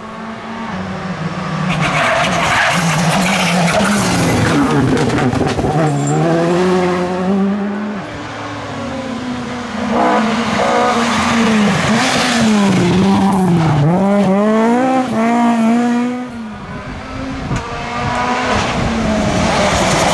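Rally car engine driven hard, revving up and dropping back again and again through gear changes, with a run of quick throttle blips about two-thirds of the way through and a brief fall in level just after.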